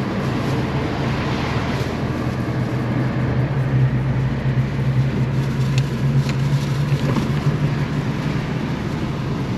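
Steady engine and road noise inside a moving car, with a low hum and a few faint ticks in the middle.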